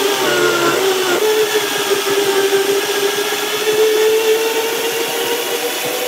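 High-powered countertop blender running on high, churning a thick banana-and-oat pancake batter. Its motor pitch drops just at the start as the load takes hold, then creeps back up and holds steady.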